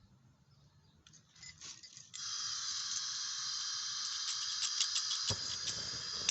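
Propane torch hissing: a few faint clicks, then the gas comes on suddenly about two seconds in and hisses steadily with light crackling. A single sharp click sounds a little after five seconds.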